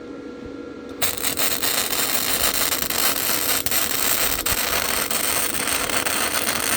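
Lincoln flux-core wire-feed welder arc crackling and sputtering steadily as a bead is run, starting about a second in, over the low hum of the welder's cooling fan. The machine is set to about 4.5 power and 5 wire speed and is still running hot on the thin pipe.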